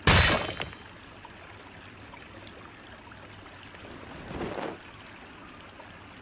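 Sword blade stabbing into stone ground: a loud, sharp impact with a brief metallic ring. About four seconds in comes a softer, short swell of noise. A stream trickles steadily underneath.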